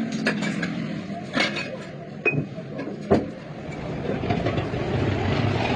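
Several sharp knocks and clinks, four of them standing out, over a steady background rumble that grows louder near the end.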